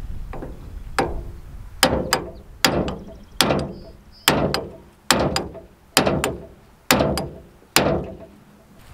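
Hammer blows on the steel yoke of a brush hog's PTO driveshaft universal joint, knocking the U-joint bearing caps loose. There are about eleven sharp metallic strikes, a little under one a second, each ringing briefly.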